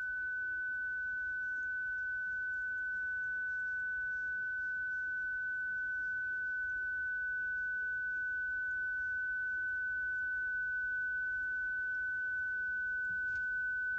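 WSPR signal as it comes out of a receiver's audio: one continuous steady tone over faint receiver noise. Its four-level frequency shifts, 1.5 Hz apart every two-thirds of a second, are too small to hear, so it just sounds like a continuous tone.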